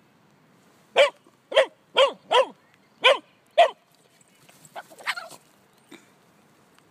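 Young dog play-barking six times in quick succession, each bark short and falling in pitch, while crouched in a play bow inviting a chase. A few fainter, shorter noises follow about five seconds in.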